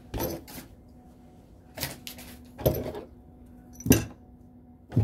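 Cotton hoodie fabric rustling and swishing in several short bursts as it is handled and pulled on, the loudest swish a little before the end. A faint steady hum lies underneath.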